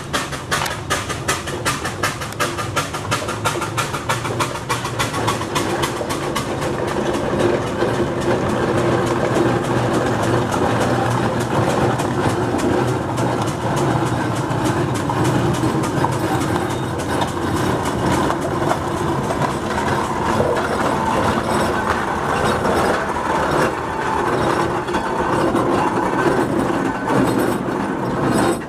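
1913 Aveling & Porter steam roller running along the road with a rapid, steady mechanical clatter. It grows louder over the first several seconds as it approaches, then stays loud as it passes close by.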